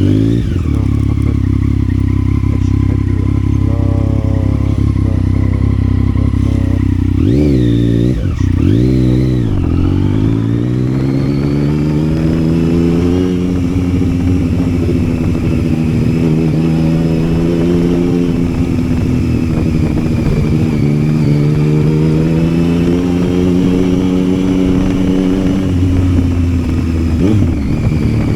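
Yamaha Tracer 900's three-cylinder engine running on the move. A few quick rises and falls in revs come about a third of the way in, then a long climb in revs under acceleration that settles into steady running, with another brief rev change near the end.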